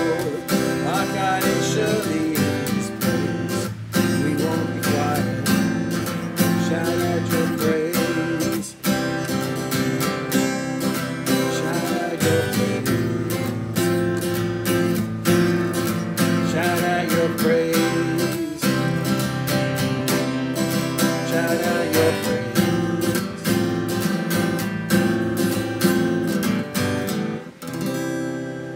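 Acoustic guitar strummed in a steady rhythm, chords ringing, fading away near the end.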